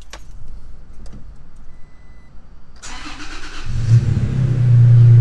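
Toyota Tacoma engine cranked by the starter, catching after about a second, then running steadily. A short faint beep comes a couple of seconds before the start.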